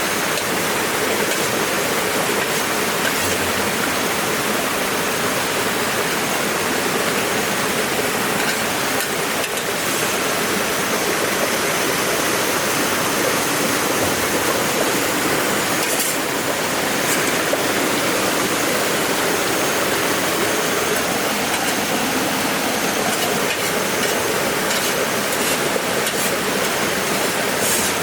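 Steady rushing of river water, with a few faint clicks now and then.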